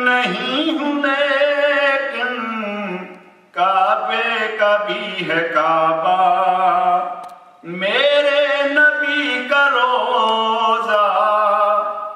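A man singing a naat, an Urdu devotional poem praising the Prophet, solo and unaccompanied, in long drawn-out melodic phrases. He takes brief breaths between phrases, about three and a half and seven and a half seconds in.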